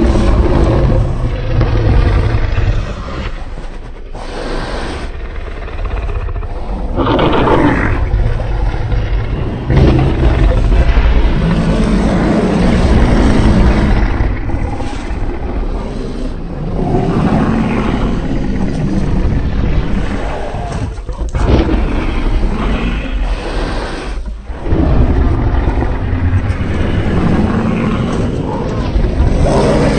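Custom Godzillasaurus monster roars, made from layered and slowed-down animal and dinosaur roars and growls. Deep, drawn-out roars and growls come one after another with brief gaps between them.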